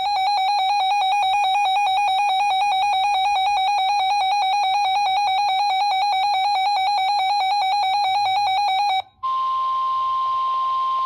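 A weather radio's electronic alert alarm sounds a rapid, pulsing beep for about nine seconds and then cuts off. Next comes the steady NOAA Weather Radio 1050 Hz warning alarm tone over receiver hiss, the tone that signals a warning, here a flood warning.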